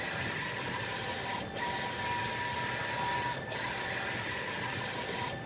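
Large-format printer printing on sticker vinyl: the print-head carriage running across the sheet with a steady whine. The whine drops out briefly about every two seconds, as the carriage turns at the end of each pass.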